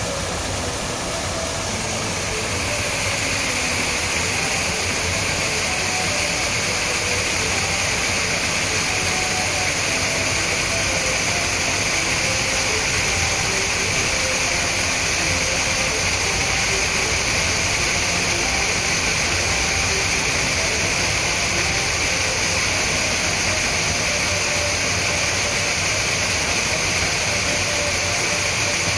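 Small rock-garden waterfall: a steady rush of water pouring over the rocks and splashing into the pool below, a little louder from about three seconds in.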